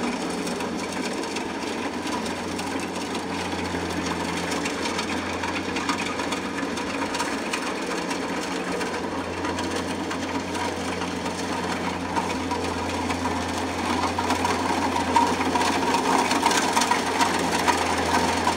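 Kubota combine harvester running, a steady engine hum that gets louder about two-thirds of the way through.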